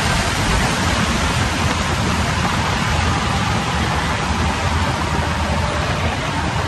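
Steady rushing noise from the flight simulator ride's sound system, the sound of falling water and rushing air as the flight passes waterfalls.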